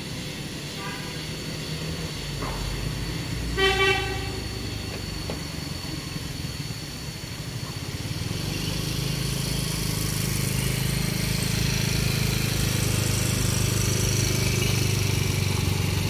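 Vehicle horn sounding: a short toot about a second in, then a louder double blast near four seconds. In the second half, the low drone of a large bus engine grows steadily louder as it approaches.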